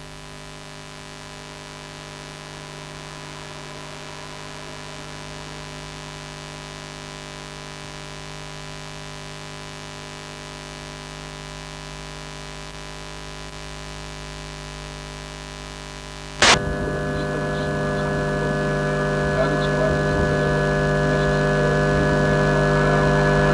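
Steady electrical hum made of many held tones. A sharp click comes about two-thirds of the way through, after which the hum is louder and fuller and slowly grows.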